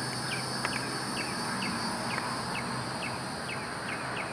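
Outdoor ambience: a steady, high-pitched insect drone, with a short chirp repeating evenly about twice a second and a faint low steady hum underneath.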